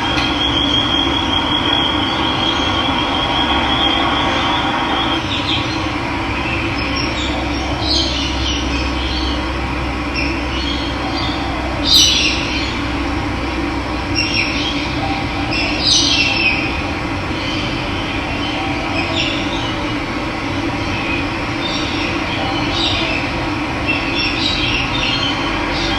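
Steady rush of running water, with wild birds chirping now and then over it; the sharpest call comes about twelve seconds in.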